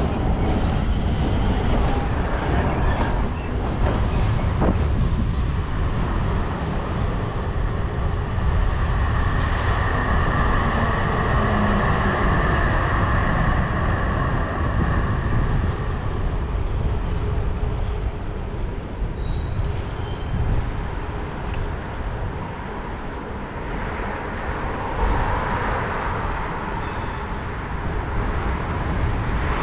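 City traffic heard from a moving bicycle: wind rumbles steadily on the microphone, and a Vienna tram runs close alongside on its tracks. A steady higher whine comes in for several seconds in the middle, and again near the end.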